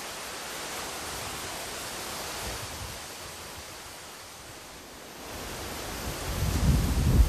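Steady outdoor hiss, then wind rumbling on the microphone in uneven gusts from about five seconds in, growing loud near the end.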